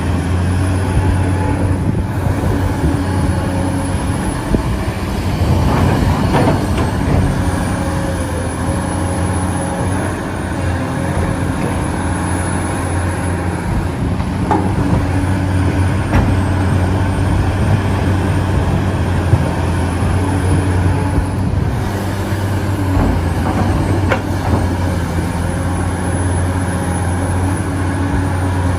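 Radio-controlled excavator's electric hydraulic pump running steadily, a constant low hum with a high whine that rises and falls several times, and a few light knocks.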